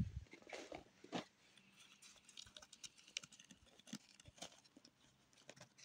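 Faint footsteps of a person walking, a soft step roughly every half second.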